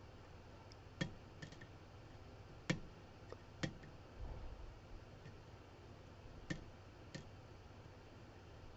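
Faint, irregular little clicks of a lock pick working inside a pin-tumbler lock's keyway as a pin is lifted and set, about seven clicks in all.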